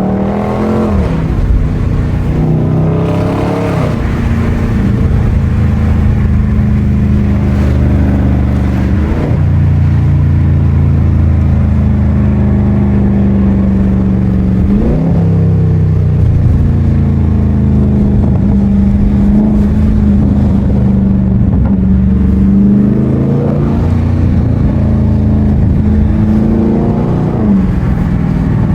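6.4-litre 392 HEMI V8 of a Dodge Charger Scat Pack with a mid-muffler delete, running while driving: a steady, loud engine note whose pitch briefly rises and drops a few times, as with gear changes.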